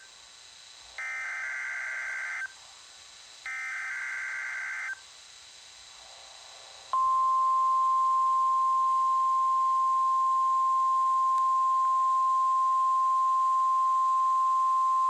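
NOAA Weather Radio test signal: two harsh, screechy digital SAME header bursts, each about a second and a half long, a second apart. About seven seconds in, the steady 1050 Hz warning alarm tone starts and holds, louder than the bursts.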